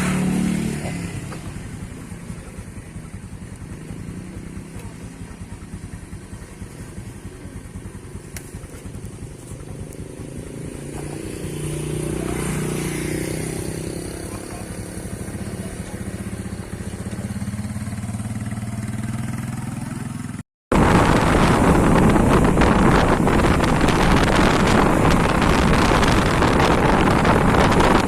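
A motorcycle engine running as the bike travels, with its pitch rising briefly about halfway through as it speeds up. About 20 seconds in, a sudden cut gives way to loud, steady wind rushing over the microphone.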